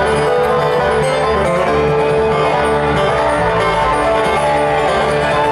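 A bluegrass string band playing live, acoustic guitar and banjo picking fast over a full band, recorded from among the audience.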